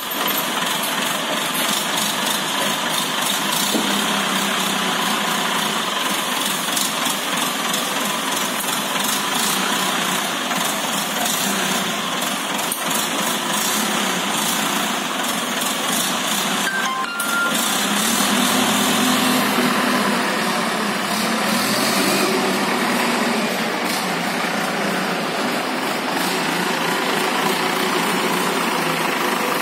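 Forklift truck running, a steady engine noise with faint clicks and knocks.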